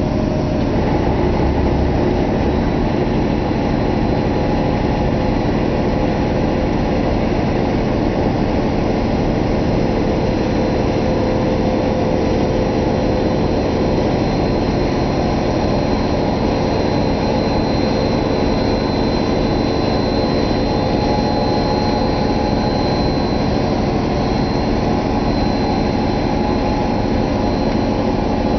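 1966 Ford Thunderbird's V8 engine running steadily, with a faint steady high whine over it.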